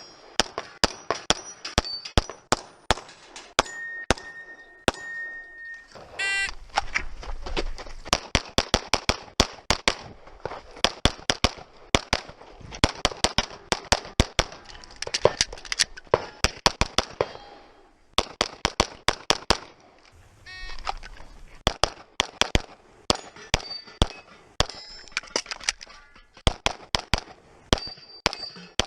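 Rapid pistol fire from a SIG P320 RX: dozens of shots, many in quick pairs, with short pauses between strings and steel targets ringing when hit.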